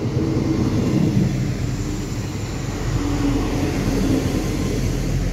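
Regional multiple-unit passenger train running past close by along the platform: a steady rumble of wheels on rail with a faint steady hum from its drive.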